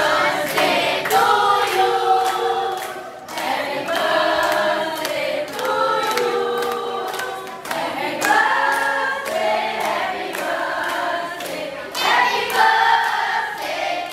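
A crowd of people singing a birthday song together, with hands clapping in time.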